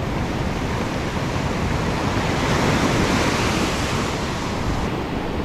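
Ocean surf breaking and washing up the shore, swelling to a peak about halfway through and easing off, with wind buffeting the microphone.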